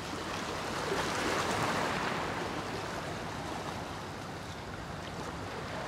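Small sea waves lapping and washing around rocks in shallow water, a steady rushing wash that swells a little about a second in.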